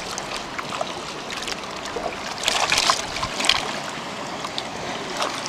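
Water splashing and running, with a few louder splashes about two and a half to three and a half seconds in.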